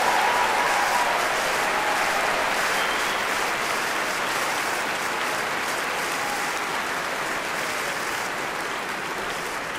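A large crowd applauding, a steady dense clapping that gradually fades.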